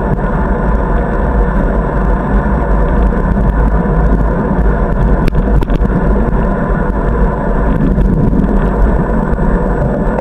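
Steady, loud wind rumble on a bicycle-mounted camera's microphone during a ride on a paved path, with two short clicks about five and a half seconds in.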